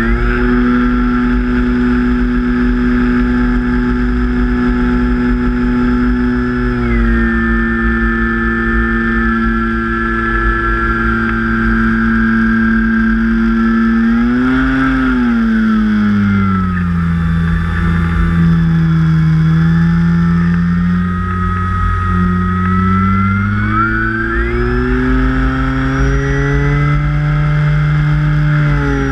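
Brushless electric motor and propeller of an E-flite Carbon-Z Cub RC plane, running in flight and heard from the onboard camera as a steady whine. Its pitch steps down twice, the second time about halfway through, then climbs back up a few seconds before the end. A low wind rumble on the microphone sits underneath.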